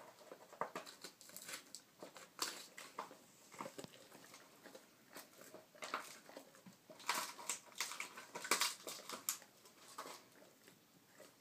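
Dog chewing and gnawing: a run of irregular short clicks, smacks and crackles, busiest about two-thirds of the way through.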